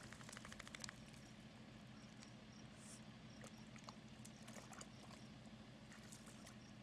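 Faint sounds of a Boston terrier puppy at a shallow mud puddle: a quick flutter of flapping in the first second as she shakes herself off, then soft scattered pats and small wet splashes as she noses and paws at the mud. A steady low hum runs underneath.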